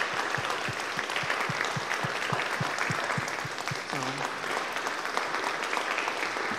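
Congregation applauding: many people clapping together in a steady round of applause.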